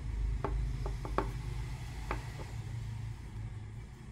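Handling noise from crochet work: about six light clicks and taps in the first two and a half seconds as nautical cord and a tapestry needle are worked through the strap, over a steady low hum.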